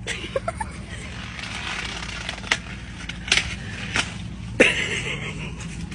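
Cornstalk leaves rustling as stalks are grabbed and pushed aside, with a few sharp cracks, the loudest near the end, over a steady low rumble.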